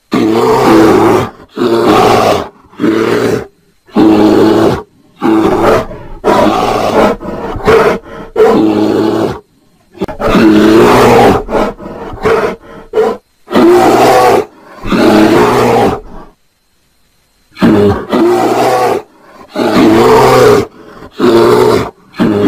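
Bear roaring in a loud run of about fifteen calls, each half a second to two seconds long, separated by short silences, with one longer pause about three quarters of the way through.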